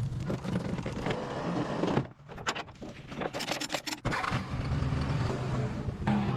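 A motor vehicle engine running with a steady low hum. About two seconds in it gives way to a quieter stretch of sharp clicks and knocks, and the engine hum comes back about four seconds in.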